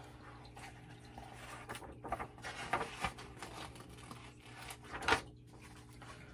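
Paper pages of a picture book being handled and turned: rustling and crinkling with a few sharp page flicks, the loudest about five seconds in.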